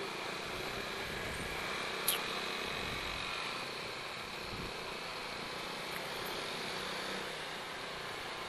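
Steady noise of slow motorcycle and car traffic, with a short, thin, squeaky vehicle horn about two seconds in, a horn likened to a shrew's squeak.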